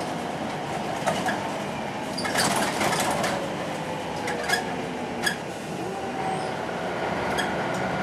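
Ride noise inside a Volvo B10M single-deck bus on the move: its mid-mounted six-cylinder diesel and driveline whine under a steady rumble, while the body and fittings rattle and click several times.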